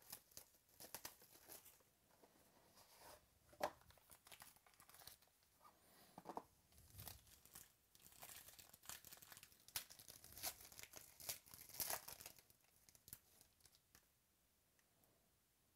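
Trading-card box's gold foil wrapping being torn open and crinkled by hand: a run of faint crackles and rips that stops near the end.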